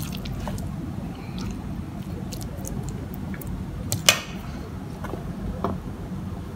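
Small clicks and knocks from handling kitchen things at a worktable over a steady low hum, with one sharp knock about four seconds in.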